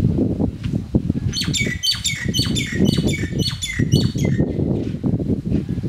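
A bird calling in a rapid run of about a dozen short, high calls, roughly four a second, starting a little over a second in and stopping about three seconds later, over a constant low rumble.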